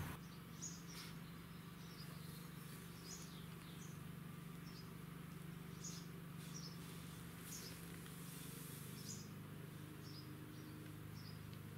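Faint, scattered short chirps of small birds over a steady low hum.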